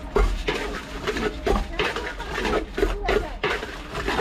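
Metal spoon scraping and clinking against a large stainless steel bowl in quick, irregular strokes as puffed rice is tossed and mixed for jhal muri.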